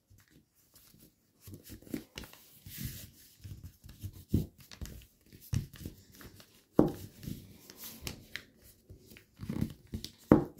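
Sheet of origami paper rustling and crinkling as it is handled and folded by hand, in short irregular crackles with sharper creasing sounds here and there.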